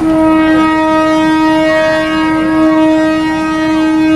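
Train horn sounding one long, steady blast that starts abruptly, as the train enters the market on its way into Maeklong station.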